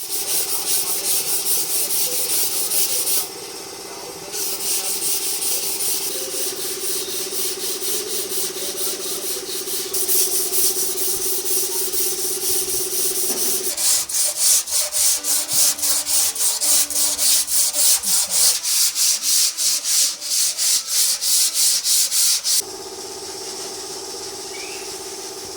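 Hand sanding: sandpaper rubbed back and forth in quick, rhythmic strokes, about three a second, with two short pauses. A steady hum runs underneath for much of it.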